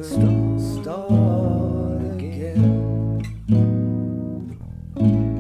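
Instrumental break of a song: acoustic guitar strumming chords, one struck about every second and left to ring, with a wavering melody line over the first couple of seconds.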